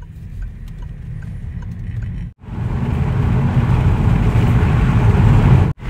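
Car driving, heard from inside the cabin: a steady low engine and road rumble. It comes in short clips that break off abruptly about two seconds in and again near the end.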